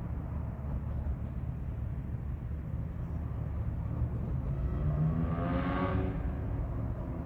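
Freight train's cars rolling past with a steady low rumble. A brief pitched tone with several overtones swells up about five seconds in and fades out a second or so later.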